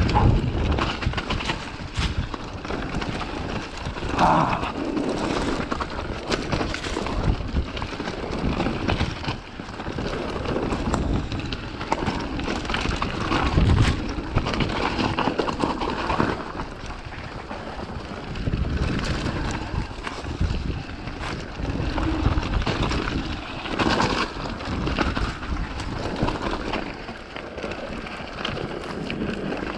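Mountain bike descending a rocky dirt trail at speed: tyres rolling and crunching over loose stones, the bike rattling with frequent sharp knocks from rocks, under steady wind rush on the microphone.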